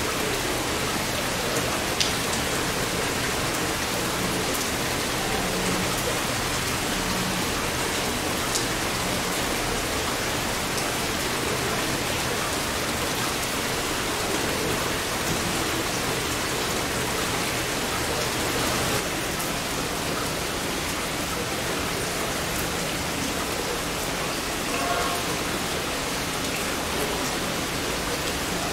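Heavy rain falling steadily, with a few sharper drops tapping now and then.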